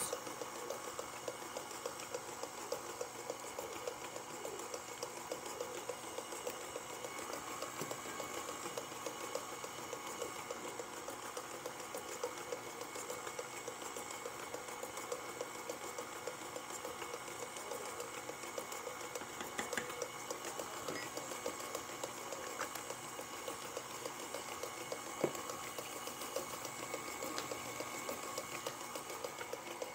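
Electric stand mixer running steadily at a low speed setting, beating cookie dough: a steady motor hum with a fast, even pulse.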